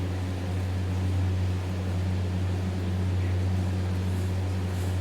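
Steady low hum over a faint even hiss.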